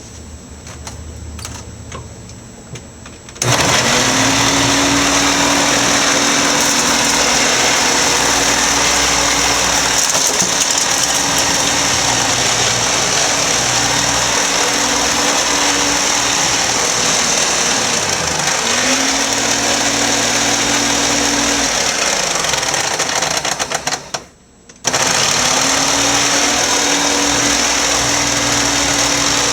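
Hoover Concept One U3109 upright vacuum cleaner switched on about three seconds in: the motor spins up to a steady whine over a loud rush of air. Its pitch dips and recovers once, then winds down. Near the end it cuts out for a moment and starts up again.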